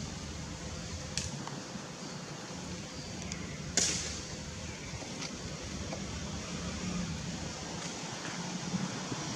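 Steady background noise with a low hum, broken by a few short sharp clicks or snaps; the loudest comes about four seconds in, and a smaller one about a second in.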